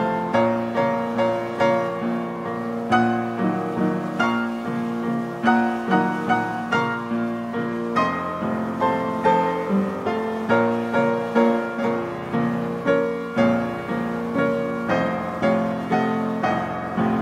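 Solo piano music playing a waltz, with a steady run of evenly spaced notes and chords.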